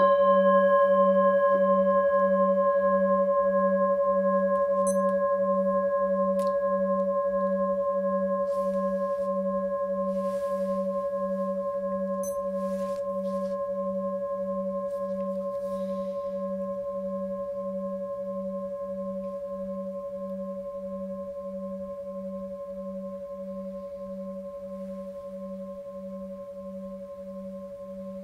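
Singing bowl struck once, then ringing on with a slow, even wavering throb in its lowest tone and fading gradually. It marks the start of a silent meditation sitting.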